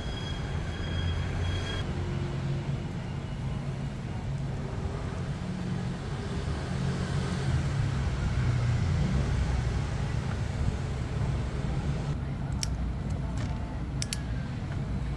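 Steady low background rumble, with a few sharp clicks near the end as a hand crimping tool closes on a cord-end ferrule over a stripped copper wire.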